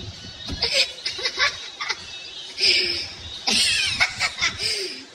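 People laughing in several short bursts, with a few spoken sounds mixed in.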